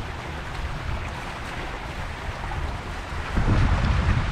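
Wind buffeting the microphone, with a low rumble that grows stronger about three and a half seconds in, over the steady splashing of a fountain's small water jets.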